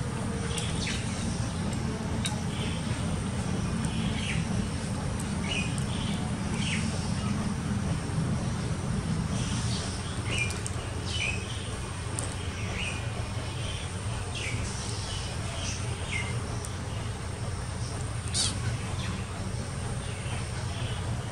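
Small birds chirping in short, irregular high notes over a steady low hum.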